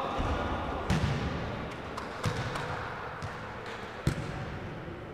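Futsal ball being kicked and bouncing on a hard indoor court: a few sharp thuds, the loudest about four seconds in, each echoing in the large hall.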